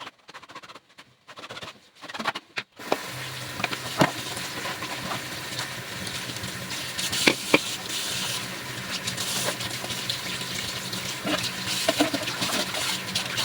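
Kitchen tap turned on about three seconds in and running steadily into the sink, with scattered clicks and knocks as dishwasher filter parts are rinsed by hand.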